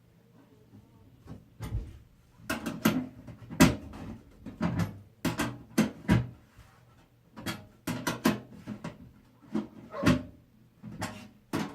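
Irregular sharp clicks and knocks, about two a second, starting about a second and a half in: screws and a screwdriver working against a metal PC case while a motherboard is being fitted.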